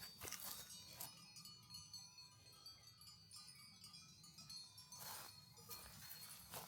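Faint ringing of small bells, with several high tones hanging on together for a few seconds, and a few soft steps.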